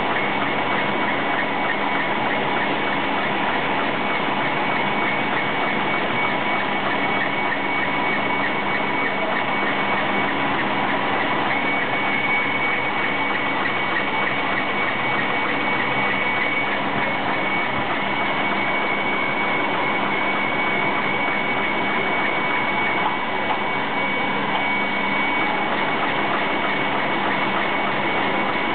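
Three-head CNC drilling and tufting machine running continuously while making cloth brushes: a dense, steady mechanical clatter with a constant high whine.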